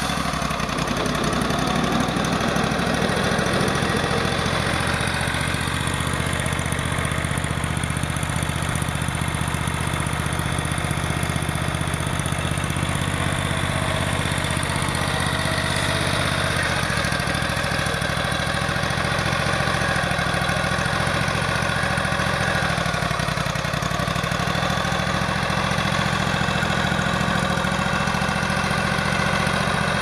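Wood-Mizer portable band sawmill's gas engine running steadily, its pitch shifting slightly partway through as the saw head works along the log.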